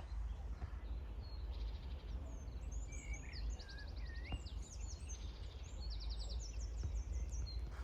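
Small birds calling: several quick high trills and short whistled notes, over a steady low rumble.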